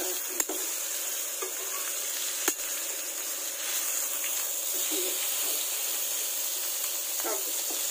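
Chicken leg pieces sizzling steadily as they fry in hot ghee in a pan, with two sharp clicks of the metal tongs against the pan as the pieces are turned over.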